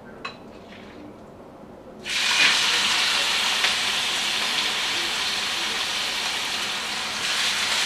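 Fish laid into a hot frying pan: a sizzle starts suddenly about two seconds in and goes on steadily as the fish fries.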